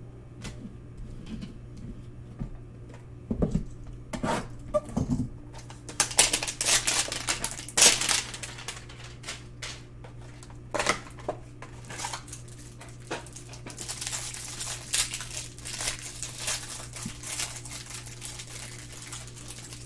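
Cardboard trading-card hanger box being handled and opened, then its plastic pack wrapper torn and crinkled as the cards are pulled out. A few soft knocks come first, and the dense crackling starts about six seconds in.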